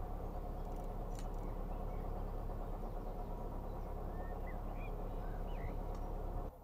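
Narrowboat's diesel engine running steadily with a low hum while cruising, with a few faint bird chirps about four to six seconds in.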